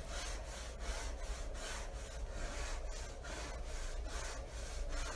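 Hand rubbing back and forth on a chalkboard, about three even scraping strokes a second.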